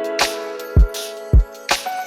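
Background music with a steady beat: deep kick drums and sharp snare-like hits over held chords.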